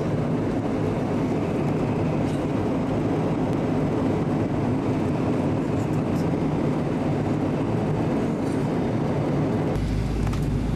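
Steady cabin noise of a jet airliner in flight, heard from a window seat: an even roar of engines and rushing air over a low hum. The low hum shifts abruptly near the end.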